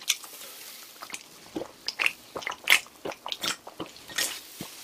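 A person drinking from a can in gulps: soft swallows and short wet mouth clicks, spaced irregularly.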